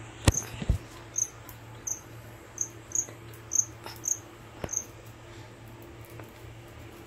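A cricket chirping: about eight short, high chirps at uneven intervals of half a second to a second, stopping about five seconds in. A sharp knock and a low thump come near the start, over a steady low hum.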